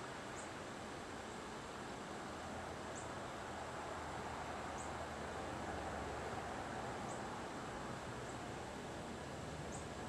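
Steady outdoor background hiss, rising a little in the middle, with a faint short high chirp repeating every second or two.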